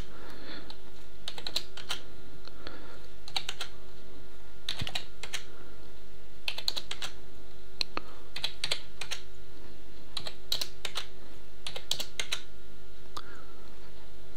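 Typing on a computer keyboard: short, irregular bursts of key clicks with pauses between, over a steady low hum.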